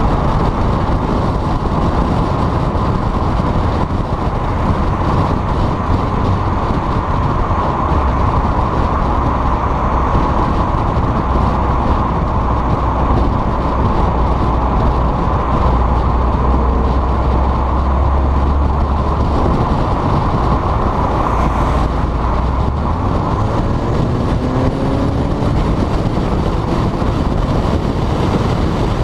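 Volkswagen GTI with a turbo-back exhaust driving, a steady loud mix of engine drone and road noise. Near the end the engine note rises as it accelerates.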